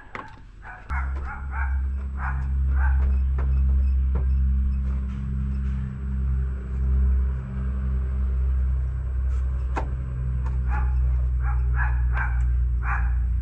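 A dog barking in two runs of quick barks, about a second in and again near the end, over a loud steady low drone.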